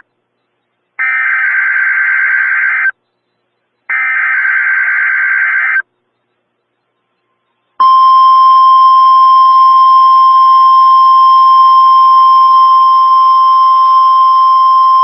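NOAA Weather Radio test signal: the last two of the three harsh, screechy SAME digital header bursts, each about two seconds long with a second's gap, then a pause of about two seconds. Near eight seconds in, the steady 1050 Hz Warning Alarm Tone starts: the single tone that switches on alert-equipped weather radios.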